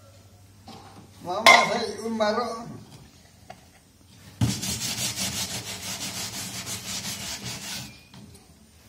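Bristle scrub brush scrubbing a plastic ride-on toy car in quick, rasping back-and-forth strokes for about three and a half seconds, starting a little after four seconds in. Before that, about a second and a half in, there is a loud pitched call lasting about a second.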